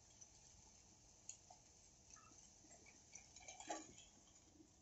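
Near silence with a few faint light clicks and short scrapes, busiest about three and a half seconds in: a spoon against an iron kadhai as sautéed moth beans are scooped out into a bowl.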